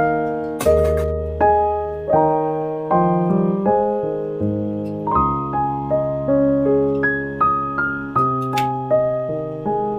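Background piano music: notes and chords struck roughly every half second to second, each fading before the next.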